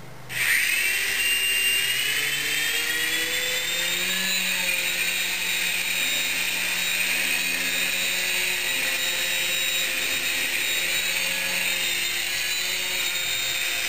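Electric motors of a small three-channel coaxial RC toy helicopter spinning up about half a second in with a rising whine, then holding a steady high whine as it flies.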